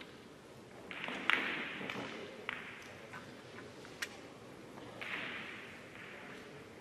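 A few sharp, isolated clicks of billiard balls striking, from other tables in the hall, with two short stretches of soft rustling, about a second in and again near the end.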